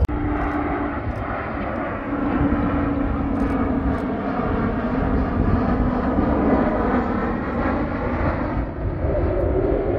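Twin-engine jet airliner flying low overhead, its engines making a steady rumble with a wavering droning tone.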